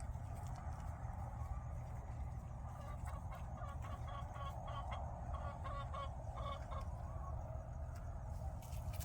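Young chickens clucking softly, with a run of short, quick calls in the middle, over a steady low rumble.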